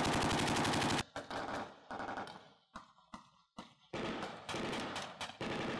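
Belt-fed light machine gun firing blanks: one long automatic burst in the first second, then shorter bursts and single shots with gaps between.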